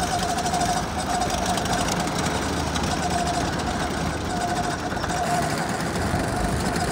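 Several go-karts running on a track, a steady motor drone with a mid-pitched whine that rises in and out.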